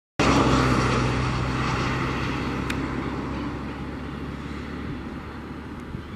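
Boeing 737-700 airliner's CFM56-7B jet engines running with a steady low hum, the noise fading gradually over several seconds.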